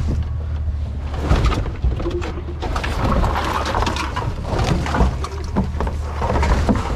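Knocks and clatter of junk being moved and handled in a dumpster, over a steady low rumble.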